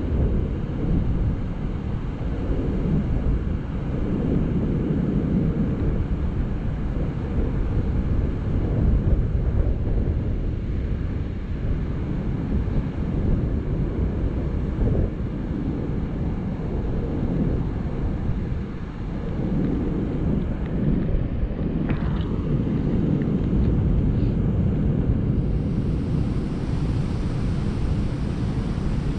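Steady low rumbling noise of wind buffeting the microphone over water rushing through a dam spillway.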